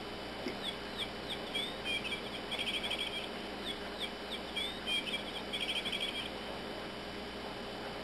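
Chirping bird cat toy playing its birdsong: a string of short chirps ending in a rapid trill, played twice in a row, stopping a little after six seconds.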